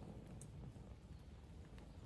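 Wood campfire burning faintly, with a few sharp crackling pops over a low rumble. One pop comes about half a second in and another near the end.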